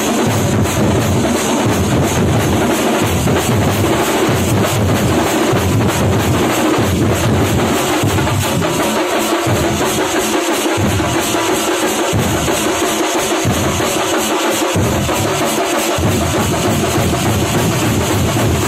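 Thampola drum troupe: many drums beaten together in a loud, fast, dense rhythm, with deep bass strokes rising and falling in weight.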